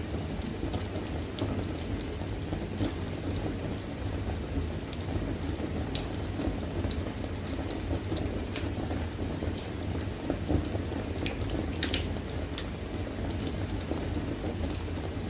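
Wood fire burning in a fireplace firebox: irregular sharp crackles and pops over a steady low rumble.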